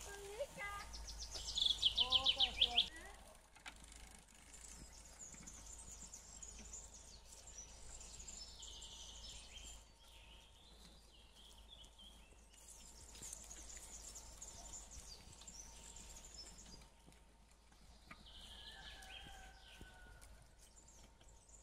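Woodland ambience with birds chirping. About a second in comes a loud, rapid, high-pitched trill lasting about two seconds, with a brief voice under it.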